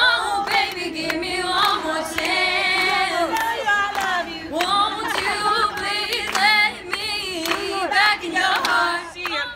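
A young woman singing solo into a handheld microphone, in long wavering notes.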